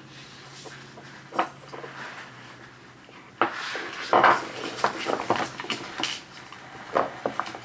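Small plastic bottles and containers clattering and knocking against one another as a Nile monitor lizard clambers over them. A few knocks come early, a dense run of rattling follows from about three and a half seconds in, and a few sharp knocks come near the end.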